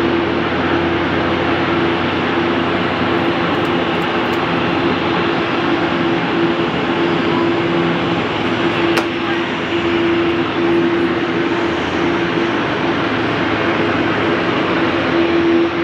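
Airliner engines running steadily on the apron at low power: a constant rushing noise with a steady hum.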